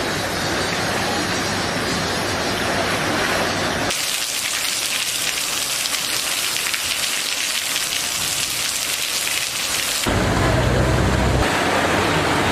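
Heavy rain falling, an even hiss. The sound changes abruptly about four seconds in and again near ten seconds, and in the last stretch a steady low hum joins the rain.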